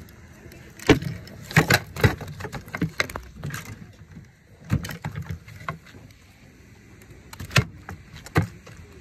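Irregular sharp knocks and slaps on wooden dock boards as a freshly landed Gila trout is handled beside the landing net, thickest in the first few seconds with two more near the end.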